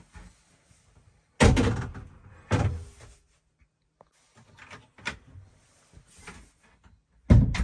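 Toilet compartment door in a boat cabin being opened and shut: two loud knocks about a second and a half in, a few lighter knocks, then another loud thud near the end as it closes.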